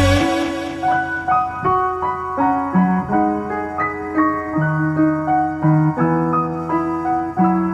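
Background music: a slow, gentle piano tune, single notes over low sustained bass notes.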